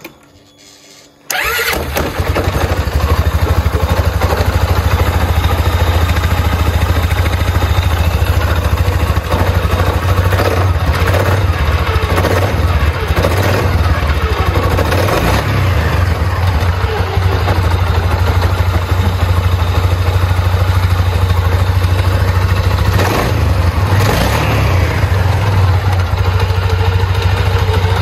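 Polaris Sportsman 550 ATV's single-cylinder four-stroke engine starts about a second in and then runs steadily.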